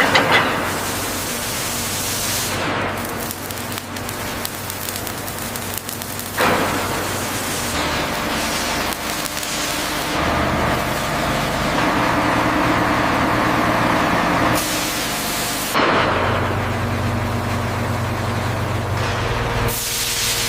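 Heavy factory machinery noise: a steady hissing rush over a low hum, changing abruptly every few seconds.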